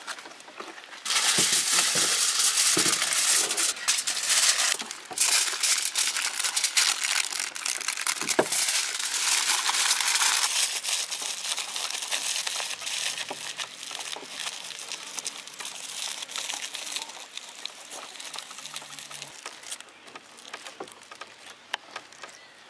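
Aluminium foil crinkling and crumpling as hands wrap it and press it tightly around a banana-leaf fish parcel. Loud for the first ten seconds or so, then softer and sparser until it fades out.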